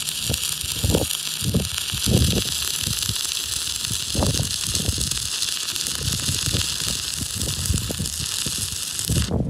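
Stick-welding arc burning a 3/32-inch 7014 electrode: a steady crackling hiss that cuts off suddenly near the end.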